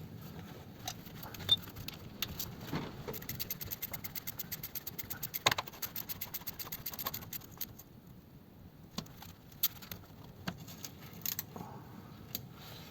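Metal hand tools clinking and rattling while bolts are fitted to a gearbox rear mount, with a few seconds of rapid, even clicking in the middle.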